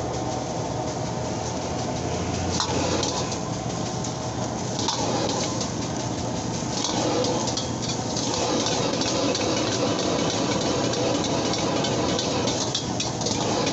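Fried rice and vegetables sizzling in a wok over a gas burner, with a steel ladle scraping and clinking against the wok as the rice is stirred and tossed. The sizzle gets a little louder from about halfway.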